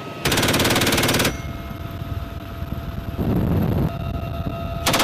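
GAU-21 (FN M3M) .50-caliber machine gun firing a rapid burst of about a second from a helicopter's open door, then a second burst starting near the end. Between the bursts, the steady noise of the helicopter in flight.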